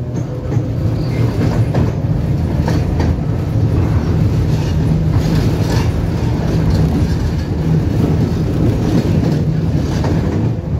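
Inside a 71-605 (KTM-5M3) tram car running along the track: a steady low rumble of wheels and running gear, with irregular clacks and rattles from the wheels on the rails.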